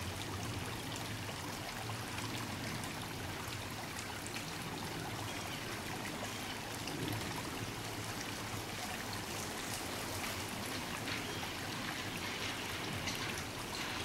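Shallow creek water running and trickling over rocks in a small riffle, a steady flow with fine splashing.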